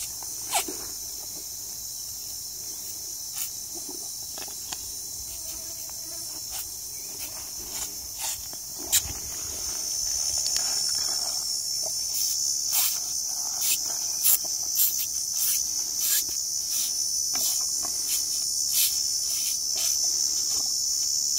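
Steady, high-pitched insect chorus buzzing without a break and growing louder about ten seconds in, with scattered short sharp clicks over it.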